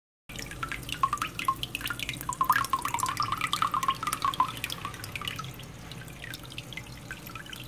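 A homemade mini water pump, built from a drink-bottle cap and a small motor run on a single AA battery, spraying water that splashes and drips back into a plastic basin. The splashing is busy at first and thins out in the second half, over a steady low hum.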